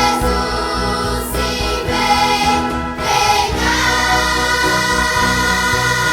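Children's choir singing a gospel song over instrumental accompaniment, settling into a long held note about halfway through.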